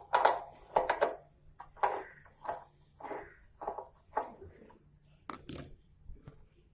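Metal spanner turning a motorcycle's chain-adjuster nut: a run of short scraping, crunching strokes, roughly one every half second to second, as the adjuster is tightened.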